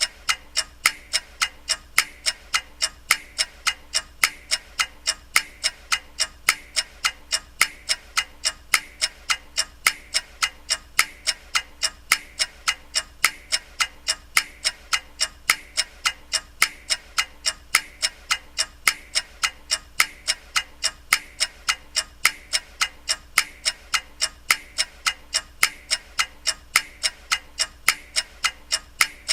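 Ticking clock sound effect: a steady run of sharp, evenly spaced ticks, several a second, without a break.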